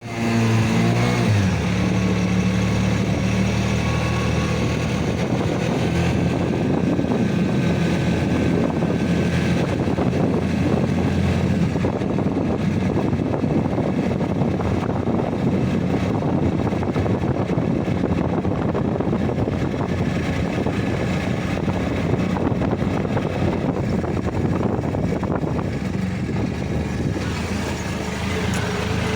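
A motor engine running steadily under a constant rushing noise, its pitch shifting briefly in the first second or so.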